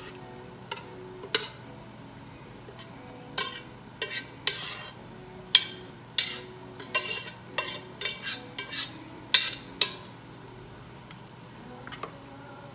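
A metal spoon scraping and clinking against the inside of a cooking pot in a quick, irregular run of sharp strokes as cooked stew is spooned out into a container. The scraping starts about a second in and stops near the ten-second mark.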